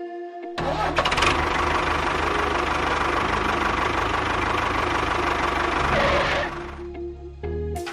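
A small engine running steadily with a low rhythmic rumble and a rattly knock. It comes in about half a second in and cuts off after about six seconds.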